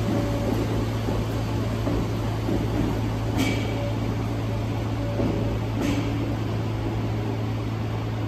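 Merseyrail Class 507 electric multiple unit pulling away from a station platform: a steady low electrical hum, with two brief sharp clicks about three and a half and six seconds in.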